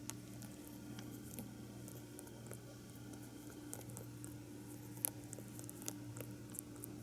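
Sleeping pet rabbit making faint, irregular small clicking sounds, with one sharper click about five seconds in, over a steady low hum.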